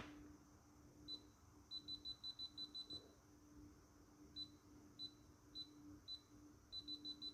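Kaiweets KM601 multimeter's non-contact voltage detector beeping at a high pitch as it senses a live, plugged-in lead. The beeps come singly at first, then in quick runs of about five a second, twice.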